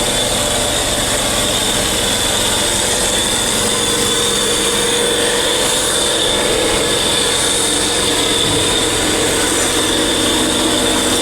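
A machine running steadily, a loud even noise carrying a high whine and a lower hum that hold their pitch throughout.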